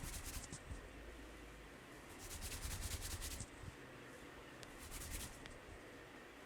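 Hands rubbing briskly in a massage, in three bursts of quick scratchy strokes, the middle one longest at about a second.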